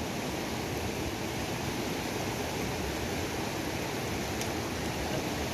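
Steady rushing of a fast, shallow mountain river running over rocks and through small rapids.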